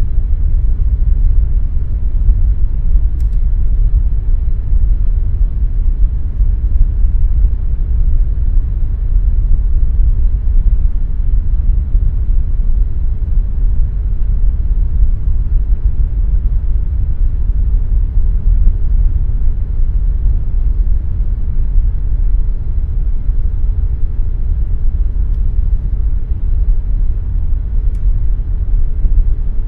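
Air conditioner running steadily: a constant deep rumbling noise with a faint steady hum tone above it.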